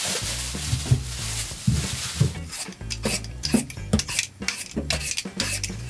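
Utensils clinking, scraping and knocking against dishes and a pot of braised chicken stew, a rubbing, stirring noise at first and then a run of sharp clicks.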